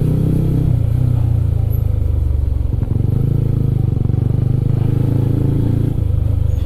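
Yamaha Sniper 150's single-cylinder four-stroke engine running steadily as the motorcycle is ridden.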